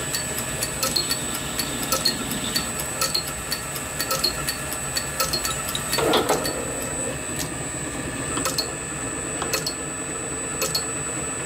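Vintage metalworking lathe running, with a steady hum and a regular ticking. About six seconds in, a brief clatter as the brass engine frame is lifted off the lathe's cross-slide.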